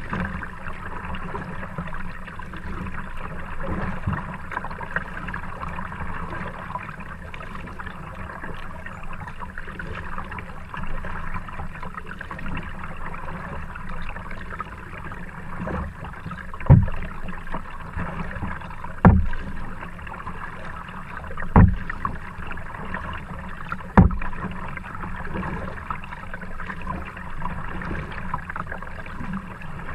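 A kayak moving on calm river water, heard from a camera mounted on its bow: a steady wash of water and hull noise. Past the middle come four sharp thumps about two and a half seconds apart.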